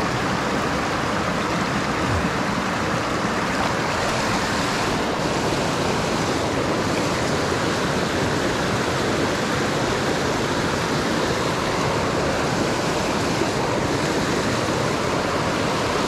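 Mountain trout creek rushing steadily over rocks.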